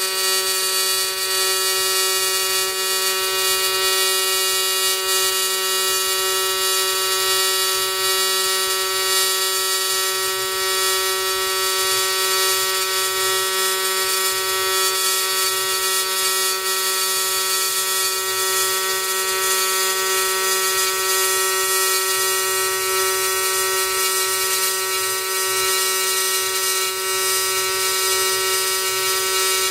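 AC TIG welding arc from an Everlast 210EXT on aluminum, run at 200 Hz AC frequency with the triangle waveform: a steady, unbroken high-pitched buzz.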